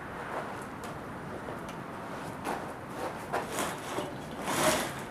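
Hand-pumped hydraulic engine hoist being worked to lift a drum sander of some 200 pounds, its pump handle and ram giving a series of short, irregular scraping strokes, the loudest shortly before the end.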